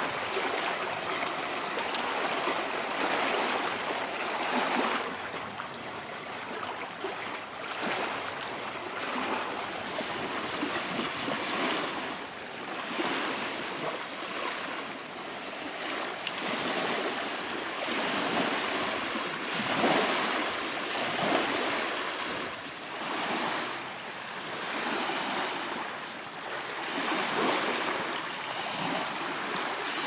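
Small lake waves lapping and washing onto a pebbly shore, the splashing swelling and fading every second or two in an uneven rhythm.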